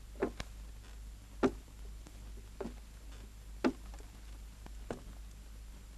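About six short, sharp knocks or taps, irregularly spaced roughly a second apart, over a low steady hum.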